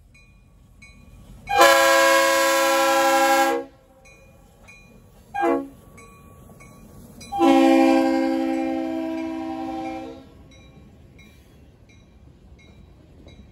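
Diesel freight locomotive's air horn sounding three blasts, each a chord of several notes: a long blast, a short one, then another long one that fades a little as it is held. A faint bell rings about twice a second underneath.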